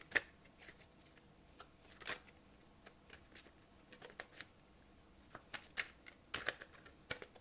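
Thoth tarot deck being shuffled by hand: soft, irregular clicks and rustles of cards.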